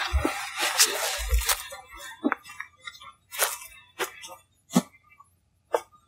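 A run of about eight sharp cracks and snaps in a forest recording, unevenly spaced, with a rustling hiss through the first two seconds.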